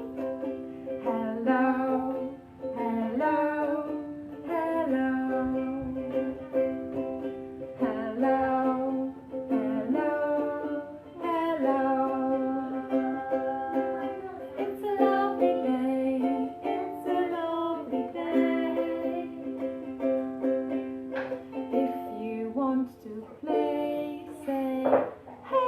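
Music: a simple children's song with a strummed plucked string instrument and a woman's singing voice holding long notes.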